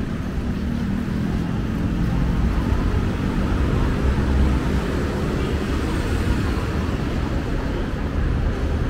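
Street traffic: motor vehicles running and passing, a steady low rumble.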